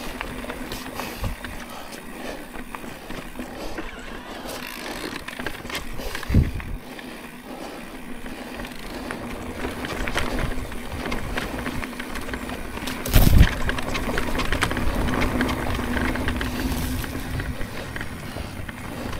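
Electric mountain bike being ridden over a rough trail: tyre noise and the bike rattling and clicking over bumps, with a steady hum underneath. Two heavy thumps come about six and thirteen seconds in, and the rushing noise grows louder in the second half as speed picks up.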